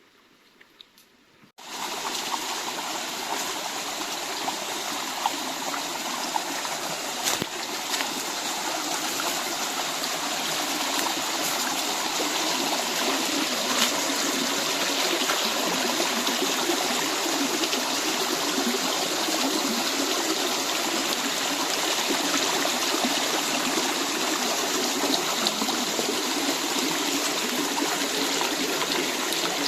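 Small forest stream running over stones, a steady rush and trickle of water that starts abruptly about a second and a half in, with a few faint clicks.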